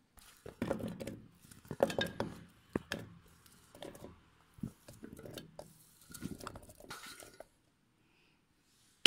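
Chunks of ripe mango dropped and tipped into a stainless steel mixer-grinder jar: an irregular run of soft thuds and small metallic clinks against the jar, stopping a second or so before the end.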